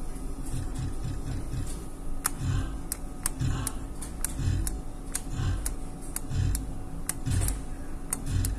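Book of Ra video slot machine playing spin after spin: a ticking reel sound with repeated low thumps and a dozen or so sharp clicks as the reels spin and stop.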